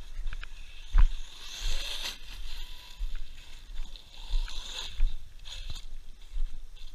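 Wind buffeting the microphone in uneven gusts, with a steady hiss and one sharp knock about a second in.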